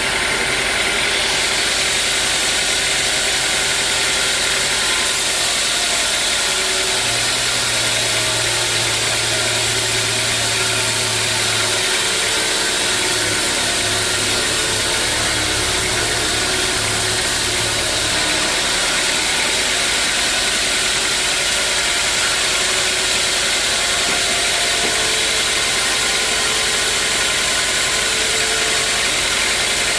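Sawmill machinery running steadily, a loud even hiss over a motor's hum. A deeper hum joins about seven seconds in and fades out around eighteen seconds in.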